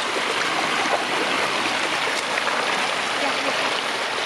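Floodwater running steadily in a continuous rush, with a few small splashes in it.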